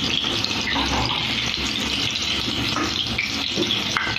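Bottle gourd pakoras sizzling in hot oil in an iron kadhai: a steady frying sizzle, with a few light knocks of the metal slotted spoon as the fritters are turned and lifted out half-fried.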